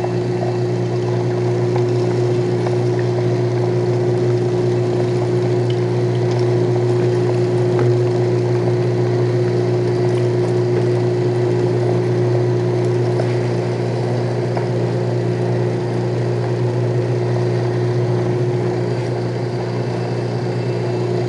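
Homemade motor-driven meat grinder running steadily, a constant low hum with a steady higher tone above it.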